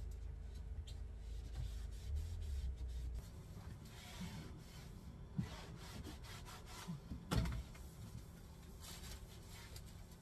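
Cloth wiping and rubbing over a camper van's kitchen counter and sink, in short scrubbing strokes with a few light knocks of things being moved; the loudest knock comes about seven seconds in. A low steady hum stops about three seconds in.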